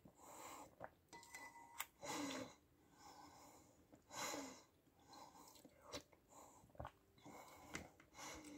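Quiet sounds of a person eating soup from a spoon: several soft slurping sips with breathing between them, and a few light clicks of a metal spoon against the bowl.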